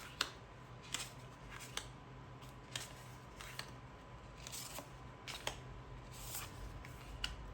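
Stiff oracle cards being handled one after another: a sharp papery snap or tap roughly every half second to a second, some with a short sliding rustle, as the cards are flipped through and laid down.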